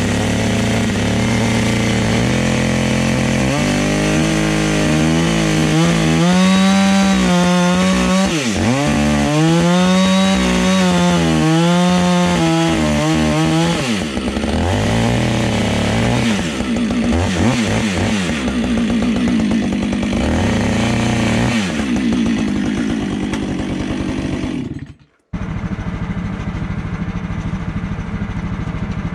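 Chainsaw running at full throttle as it cuts through a squared red pine log, its engine pitch repeatedly sagging and rising under the load. About 25 seconds in it breaks off and a steadier engine hum follows.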